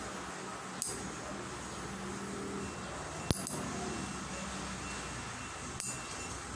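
Metal toenail clipper snipping through toenails close to the microphone: a sharp click about a second in, a louder double click past three seconds, and another near the end, over a steady low hum.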